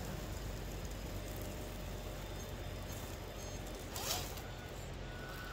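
RC rock crawler with a Holmes Hobbies Puller Pro brushless motor, working up a boulder: a low steady hum, then about four seconds in a short zipper-like rasp that falls in pitch.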